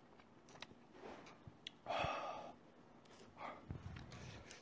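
A person lets out one heavy breath about two seconds in, with light clicks of chopsticks against a metal pan around it.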